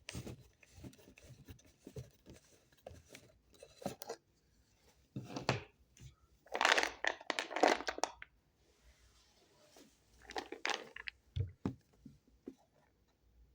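Paper seal on a mixed-nuts container being torn open in three short rips, with small handling clicks between them.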